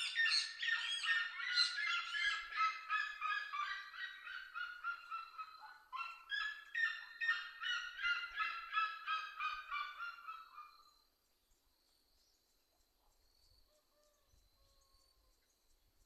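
Red-legged seriema song: a long series of loud, quick yelping notes, several a second, breaking off briefly about six seconds in, resuming, then stopping about eleven seconds in. A faint steady insect trill remains afterwards.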